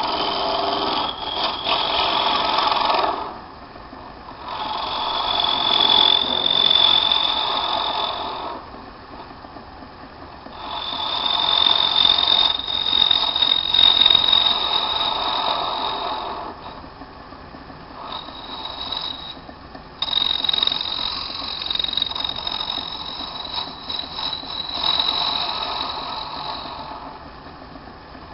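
A small metal lathe turning a bone workpiece, with a hand-held scraping tool pressed against the spinning bone. It gives a high-pitched scraping squeal in passes of a few seconds, five times over, and the lathe runs quieter between the passes.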